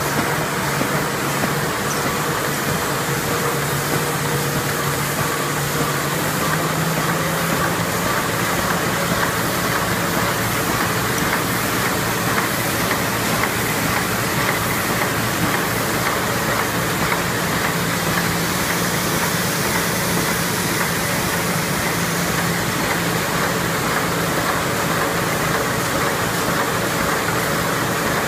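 PF-EMS express mail envelope making machine running steadily: the continuous mechanical noise of its rollers, belts and folding units, with a low steady hum underneath.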